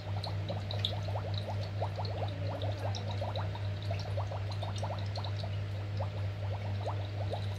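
Bubbling sound effect from a children's electronic learning tablet toy's speaker: quick short rising blips, several a second, over a steady low hum.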